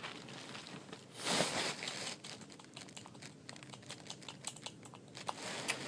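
Quiet, irregular light clicks and taps, with a short soft rush of noise about a second in.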